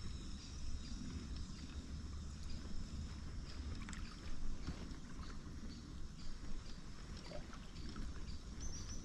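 Shallow river water lapping and splashing in small irregular ticks, over a steady low rumble.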